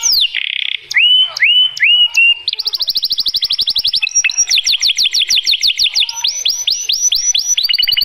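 White domestic canary (male) singing its breeding song loudly. It sings in tours of repeated notes: a short buzz, a few slow downward-slurred whistles, then rapid trills of down-sweeping notes that change pace several times.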